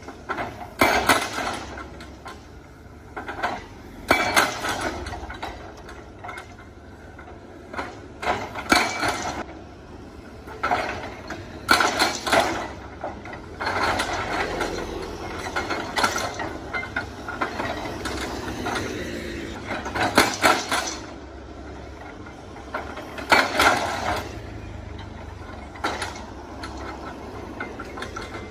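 Hydraulic rock breaker on a SANY excavator hammering rock, a fast rattle of blows in repeated bursts of half a second to two seconds. The excavator's engine runs steadily underneath.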